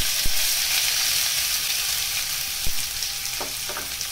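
Chopped onions hitting hot oil and cumin seeds in a nonstick kadai, setting off a steady sizzle at once. There are a couple of light knocks, and a wooden spatula starts stirring near the end.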